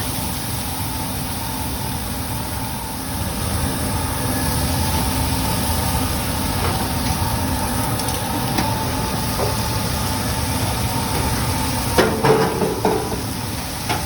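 Beef searing on a flat-top griddle: a steady sizzle over a low mechanical rumble, with a short clatter of several knocks about twelve seconds in.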